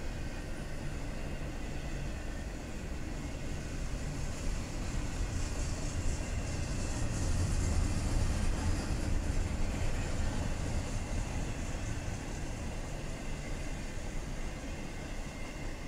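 Intermodal freight train's double-stack well cars rolling past, a steady rumble of steel wheels on rail that swells a little around the middle.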